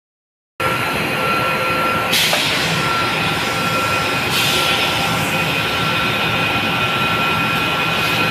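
Thyssenkrupp KB 1750 batch sugar centrifugal spinning, a loud steady machine drone with a high whine. There are two short bursts of hiss about two and four seconds in.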